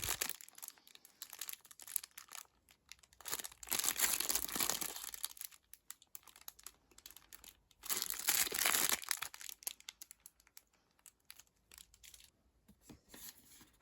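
Crinkly packaging rustling and crinkling as a product is handled and unwrapped. There are two longer bursts, about three and eight seconds in, with scattered light clicks and rustles between.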